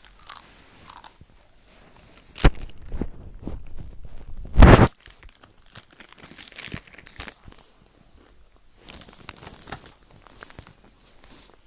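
A person chewing and biting crunchy food close to the microphone: irregular crunches and crackles, with a sharp loud crunch about two and a half seconds in and the loudest, longer crunch a couple of seconds later.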